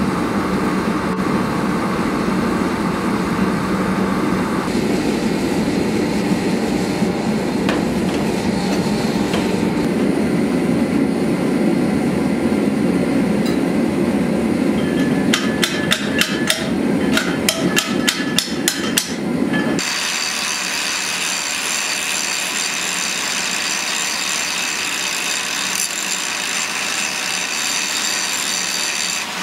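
A gas forge burner runs steadily. Around the middle comes a quick run of about a dozen hammer blows, some three a second, forging hot steel on the anvil. They end with a cut to an angle grinder with a cutoff disc whining steadily as it cuts steel.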